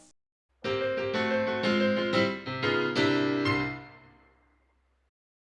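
A short piano phrase: a quick run of notes that starts about half a second in and dies away about four seconds in.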